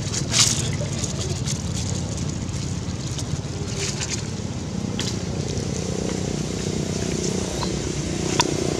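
A steady low rumble, with a few sharp dry crackles of leaf litter as a monkey shifts on the ground; the loudest crackle comes about half a second in and another near the end.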